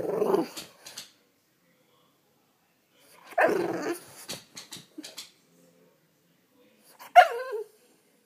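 French bulldog barking to wake its owner, in three short bouts: one at the start, another about three seconds later, and a sharper one near the end that falls in pitch.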